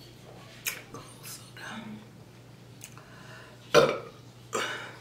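A woman burping: a loud burp about three-quarters of the way in, followed closely by a second shorter one, smaller burps than the big ones she is trying to force out.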